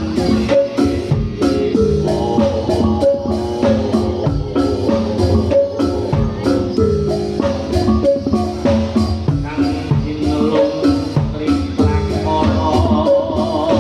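Javanese gamelan-style accompaniment for a Reog dance: pitched metal mallet percussion plays repeated interlocking notes over a steady beat of drum strikes, without pause.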